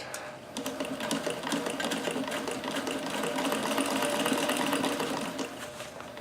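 Davis Vertical Feed sewing machine stitching at a steady speed with a ruffler attachment fitted, a rapid, even clatter of needle and ruffler strokes that settles in about half a second in.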